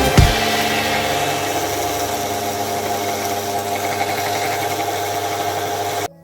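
A power tool running steadily, cutting off abruptly near the end.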